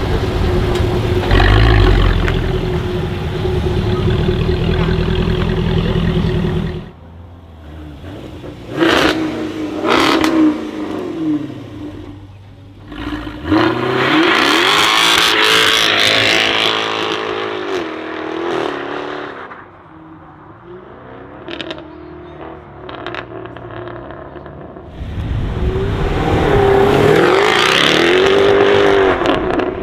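Jaguar F-Type's supercharged 5.0-litre V8 exhaust, running at a steady note and then stopping abruptly about seven seconds in. Quick throttle blips with sharp cracks follow, then two full-throttle accelerations whose pitch rises and falls, the later one near the end.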